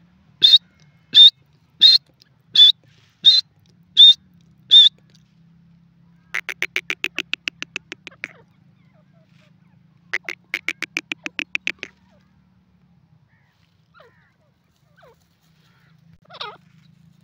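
Grey francolin calling: seven short, loud, high notes about two-thirds of a second apart, then two quick rattling runs of rapid notes, each about two seconds long.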